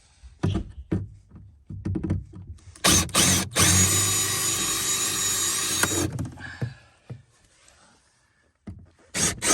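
Power drill running: a few knocks and clicks, then a short burst and a steady whirring run of about two and a half seconds with a high whine. It stops about six seconds in, and the drill starts again near the end.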